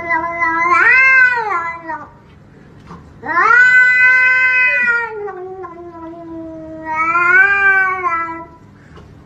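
A grey domestic cat yowling in long, drawn-out meows. The first call rises and falls about a second in. A longer one starts a little over three seconds in, wavers in pitch and trails on until shortly before the end.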